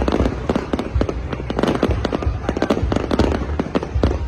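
Aerial fireworks shells bursting in rapid succession, many bangs a second over a continuous rumble and crackle.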